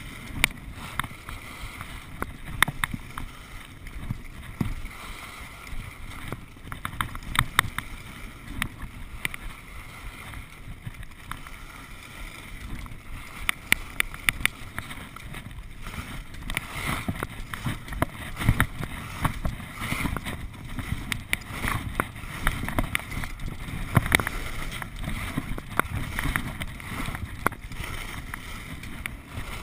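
Skis scraping and hissing over packed snow on a downhill run, with low wind rumble and scattered sharp clicks and knocks, heard through a body-strapped GoPro.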